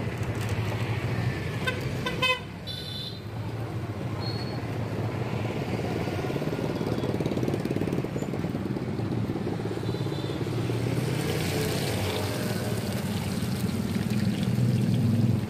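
Steady roadside traffic noise with a vehicle horn tooting briefly about two seconds in. Toward the end, oil bubbles and sizzles in a frying kadai.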